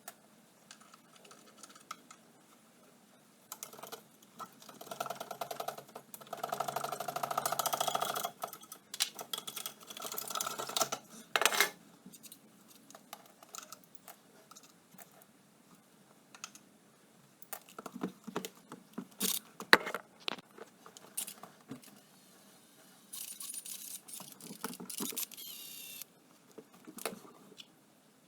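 Hand tools and metal parts clicking, clinking and rattling while an ATV is taken apart, with a denser buzzing run about five to eight seconds in and a scratchy stretch near the end.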